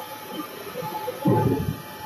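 Horizontal band sawmill running, its saw head travelling along the track over the log: a steady machine hiss with a faint whine. A heavier rumble swells about a second and a quarter in and dies away before the end.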